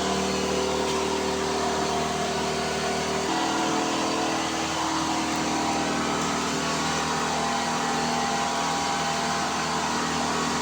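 3D printer running, its stepper motors whining in several steady tones over a hum, the tones shifting to new pitches about three seconds in.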